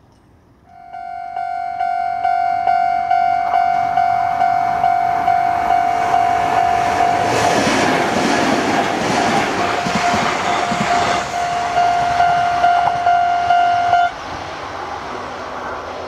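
Level-crossing warning bell ringing in a steady, evenly repeated ding, starting about a second in. A Kintetsu train passes through the crossing in the middle, its wheel and running noise loudest midway, and the bell stops suddenly near the end.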